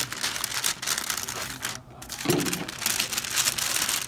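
Parchment paper bag crinkling and rustling as it is folded shut by hand, with a short pause and a soft thump a little past the middle.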